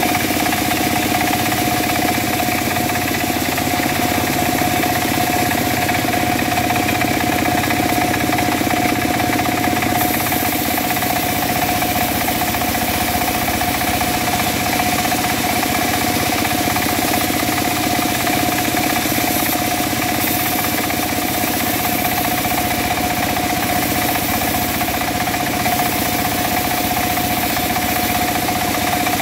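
Engine-driven wood saw running at a steady, constant speed, with a brighter hiss joining from about ten seconds in.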